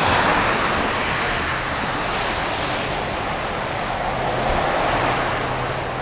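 Traffic on a wet road: the hiss of car tyres on wet pavement over a low engine rumble, swelling at the start and again about four seconds in as vehicles pass.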